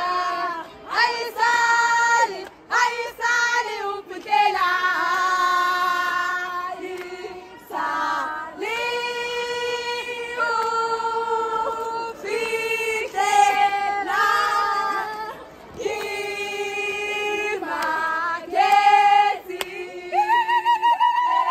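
A group of women singing a song together in unison, with long held notes and short breaks between phrases.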